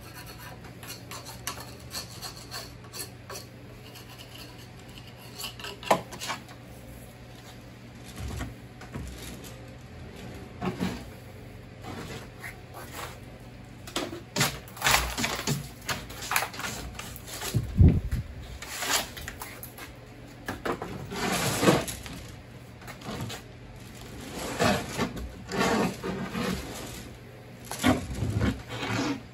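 A hand tool scraping and rubbing over the surface of a freshly de-molded cast angel statue, with irregular knocks and clatters of tools and handling on the wooden workbench; the loudest is a dull thump about 18 seconds in.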